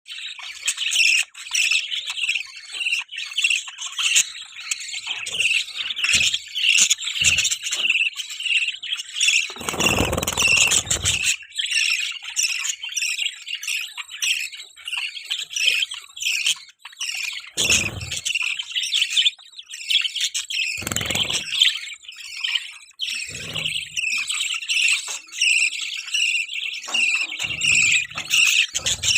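Budgies chirping in rapid, unbroken chatter, broken by a few dull low noises, the longest about ten seconds in.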